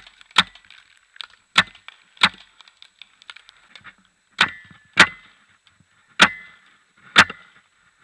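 Paintball marker firing single shots, about seven sharp pops at an uneven pace, some followed by a short metallic ring.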